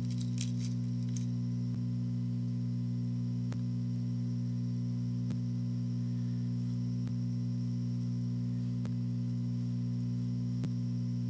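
Steady low electrical hum, with a faint click repeating about every second and three quarters and a few light, sharp clicks within the first second.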